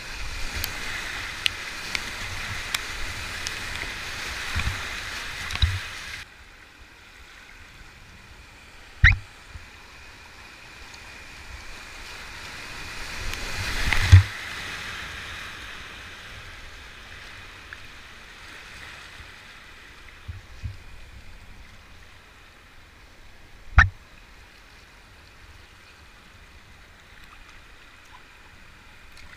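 Whitewater rapids rushing around a kayak, loud for the first six seconds, then dropping to a quieter flowing-water sound. The rush swells to a loud thump about fourteen seconds in as the boat plunges through the foam of a ledge drop, with two other sharp thumps a few seconds before and about ten seconds after.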